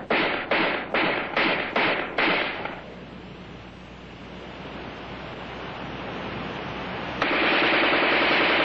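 AR-10 rifle firing a quick string of shots, about two a second, for the first two or three seconds. A hiss follows, then a sudden loud, sustained burst of noise starts about seven seconds in and runs on.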